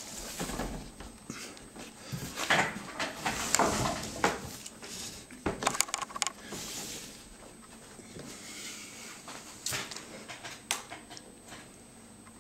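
Wooden tube-radio cabinet being turned around and shifted on a cloth-covered table: irregular scraping and knocking as it is handled, then a couple of sharp clicks near the end.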